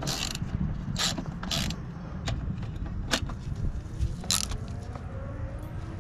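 Hand socket ratchet on a long extension clicking in about five short bursts as the handle is swung back and forth, undoing the bolt on the oil filter housing lid.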